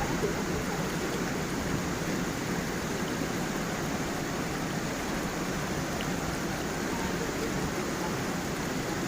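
Gentle forest stream and small waterfall: water rushing steadily, with a low, even sound.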